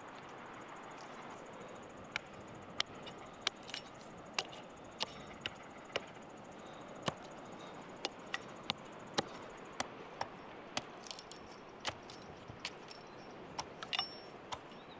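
Wood being struck with a tool: sharp, irregular wooden knocks and cracks, roughly one or two a second, over a steady faint hiss.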